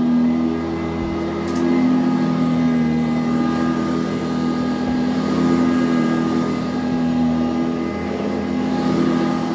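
Eureka High Filtration Commercial upright vacuum cleaner running on carpet: a steady motor hum that shifts slightly in pitch and loudness as it is pushed back and forth.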